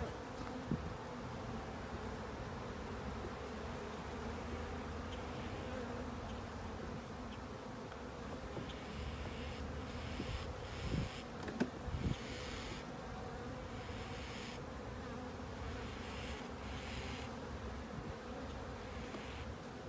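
Honeybees buzzing around an opened hive in a steady hum, with a few short knocks shortly after the start and twice near the middle.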